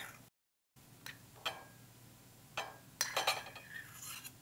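Metal tongs clinking and scraping against a stainless steel pan as caramelized apple slices are slid out onto a ceramic plate. There is a run of short clinks, busiest about three seconds in, and the sound drops out briefly near the start.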